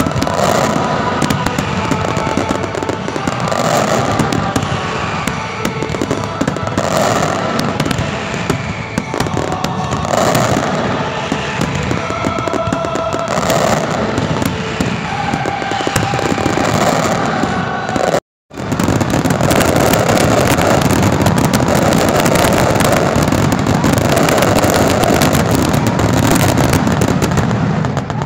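Dense aerial fireworks barrage: continuous crackling and bangs, growing denser after the sound cuts out for a split second about two-thirds of the way through.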